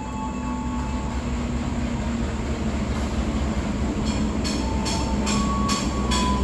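Diesel-electric locomotive hauling a passenger train into a station, its engine rumble and rolling noise growing louder as it approaches. From about four seconds in, a quick run of sharp clicks as the wheels cross rail joints or points.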